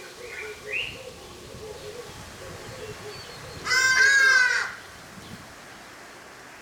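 A bird gives one loud call, about a second long, a little over halfway through. Faint chirps sound near the start, and a soft low call repeats steadily underneath.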